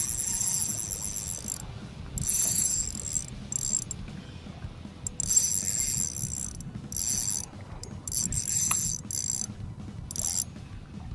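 Spinning reel's drag buzzing in short, irregular high-pitched bursts as a hooked fish pulls line off against it.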